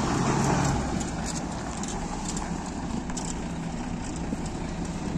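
Heavy goods truck's diesel engine running steadily at low revs as the truck moves slowly, a little louder in the first second.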